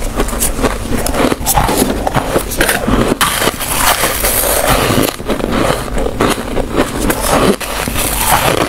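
Close-miked chewing of a mouthful of freezer frost: dense, continuous crunching and crackling as the frost is bitten and chewed.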